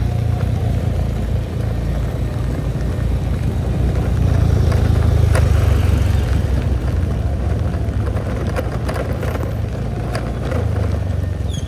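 A motorcycle on the move, its engine and the rush of riding making a steady low rumble. The rumble swells for a couple of seconds about four seconds in.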